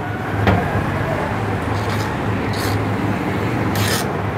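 Flat hand file rasping against the edge of a steel sewing-machine needle plate in a few short strokes in the second half, taking down a raised spot on the plate. A steady low hum underneath.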